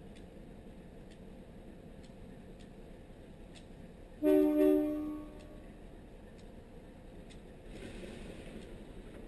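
Diesel locomotive air horn, an MLW RS18 switching tank cars, sounding two quick blasts about four seconds in that fade quickly. Near the end a low rumble grows louder.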